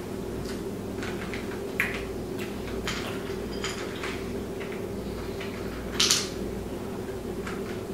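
Warheads sour hard candies clicking and rattling in a bowl as one is picked out, with faint mouth clicks from sucking the candies and a short hiss about six seconds in, over a steady hum.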